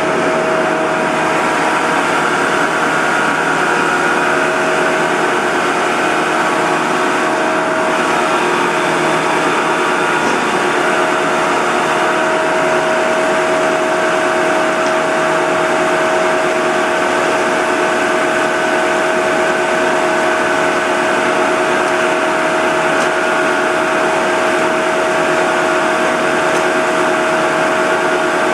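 PFS-13-13-4 four-sided planer running steadily, its cutter heads giving a constant whine over a loud machine hum.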